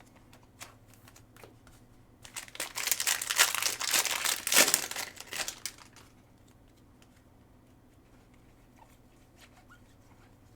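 Plastic trading-card pack wrapper crinkling and tearing for about three and a half seconds as a pack is ripped open, with a few light clicks of cards being handled before and after.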